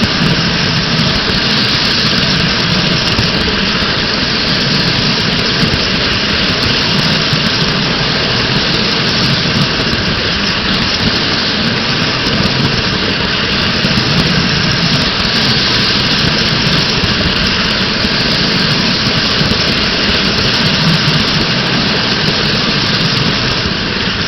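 Corona Express model train running on its track, heard from a camera riding on one of its cars: a steady, loud rumble and rush of wheels and motor.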